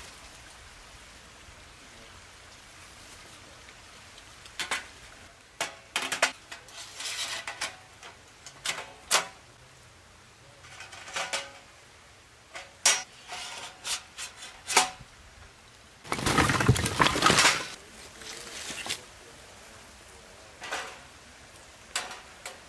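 Stainless steel folding fire pit being unfolded and assembled, its metal panels and grate giving scattered clinks and knocks. About two-thirds of the way in comes a louder rustling, scraping burst of about a second and a half.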